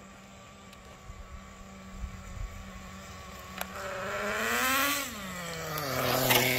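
Traxxas 4-TEC nitro RC car's small two-stroke glow engine running faint and steady, then revving higher and louder as the car comes up the road. Its pitch drops about five seconds in and climbs sharply again near the end. The owner judges the tune a little rich.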